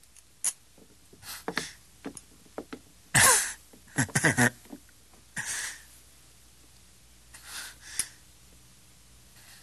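A man's short gasps, breaths and a brief grunt, the loudest about three seconds in, mixed with a few small clicks and knocks.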